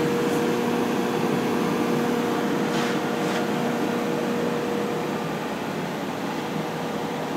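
Steady hum and fan whir from the powered CNC mill control cabinet and its variable frequency drive, with a steady mid-pitched hum tone. A lower hum drops away a little past halfway, and there are a couple of faint ticks about three seconds in.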